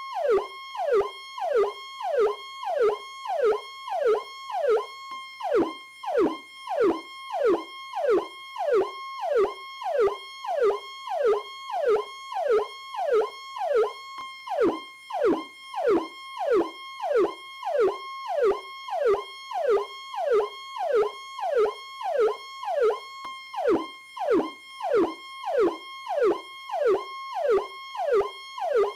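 Police Powercall electronic siren sounding continuously: rapid falling pitch sweeps repeating evenly, nearly two a second, over a steady high tone.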